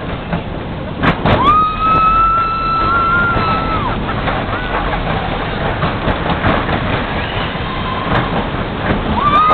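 A steel roller coaster train running at speed, with steady wind and track rumble. Riders scream over it: one long held scream about a second in lasts over two seconds, and another begins near the end.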